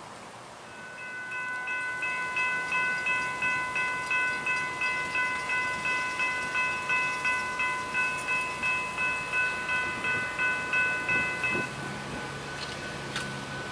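Railroad crossing warning bell ringing, about two and a half strikes a second, warning of an approaching train. It stops near the end, leaving a fainter single ringing tone and the low hum of the approaching train.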